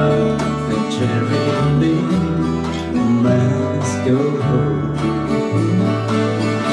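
Acoustic guitars strumming chords together with an electric bass guitar holding low notes that change about once a second: an instrumental passage played live by a small band.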